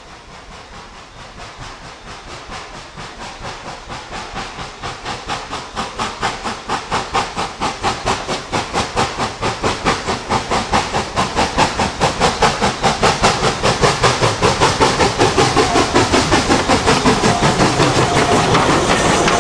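Narrow-gauge steam locomotive working toward the listener: a steady rhythm of exhaust chuffs, a few a second, growing louder as it approaches and passing close by near the end.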